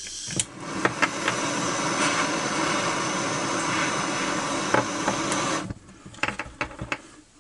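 Handheld gas torch on a canister, lit with a few clicks, then burning with a steady hiss for about five seconds before it is shut off abruptly. A few light handling clicks follow.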